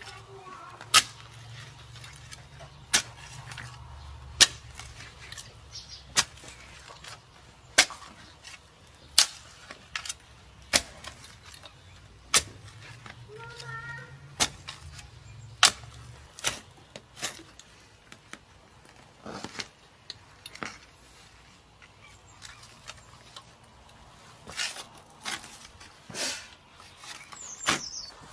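Repeated sharp knocks or clicks, irregularly spaced about one to two seconds apart, over a faint low hum that fades about halfway through.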